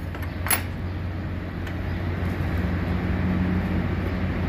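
Steady low hum of machine-shop machinery running, with a single sharp metal clink about half a second in as the connecting rod is handled in the machine's fixture.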